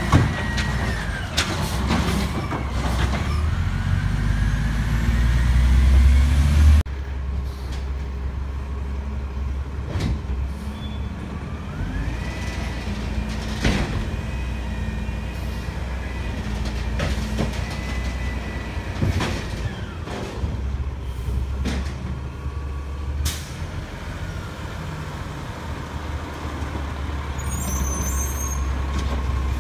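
Diesel automated side-loader garbage truck working: its engine runs heavily and revs up for several seconds before dropping back, as the hydraulic arm cycles. Scattered clanks and knocks, with an air-brake hiss.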